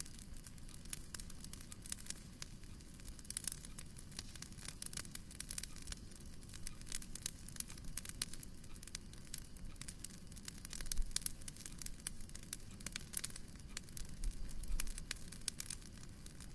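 Fireplace fire crackling, with many small irregular snaps and pops over a low steady rumble.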